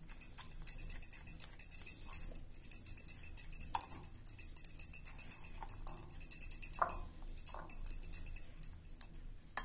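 Background music carried by a fast, steady, high jingling rhythm, with a short break near the end.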